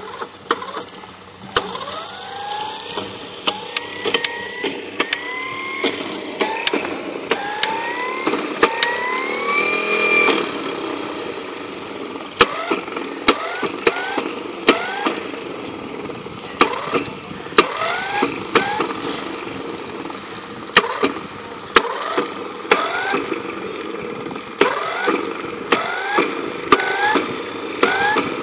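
Lure-coursing machine's motor revving in repeated pulses, the pitch rising with each burst: longer drawn-out runs at first, then short bursts about once a second. Sharp clicks are scattered throughout.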